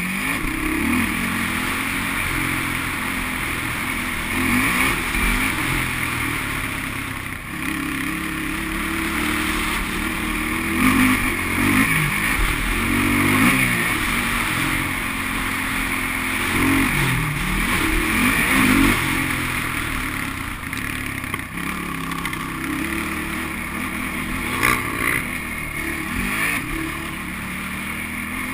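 Sport quad ATV engine being ridden hard, its revs rising and falling again and again as the rider throttles through the track. There is a short clatter about three-quarters of the way through.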